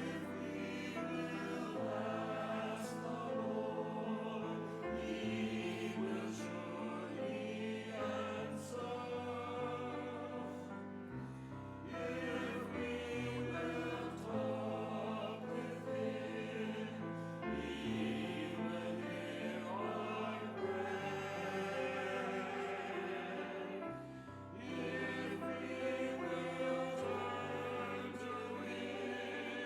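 A choir singing with instrumental accompaniment, holding sustained chords over a bass line that changes every second or two.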